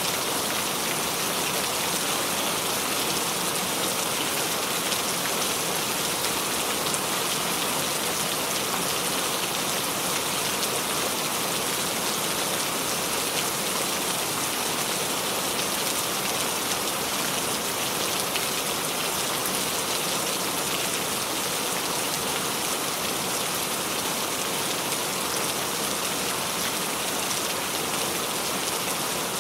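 Steady rain falling, an even patter of raindrops on a surface without letup.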